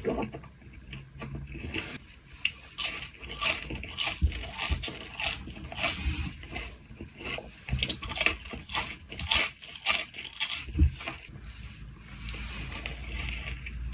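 Close-miked eating: a quick run of crisp crunches and chewing, bite after bite, from about two seconds in until near eleven seconds.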